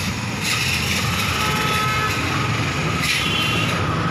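Steady low rumble with a hiss over it, holding an even level with no clear separate event.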